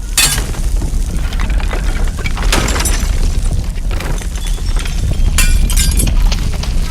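Earthquake sound effect: a deep, continuous rumble with glass shattering and things crashing down, in several bursts.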